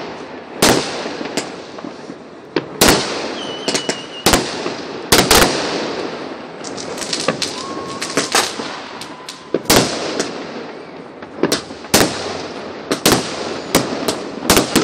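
Fireworks bursting overhead: a string of sharp bangs at irregular intervals, often several within a second, with crackling from the bursts in between.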